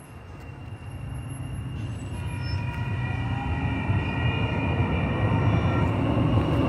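Sacramento RT light rail train approaching and passing through a grade crossing. Its rumble grows steadily louder over the first few seconds and holds loud as the cars go by, with steady high tones above it.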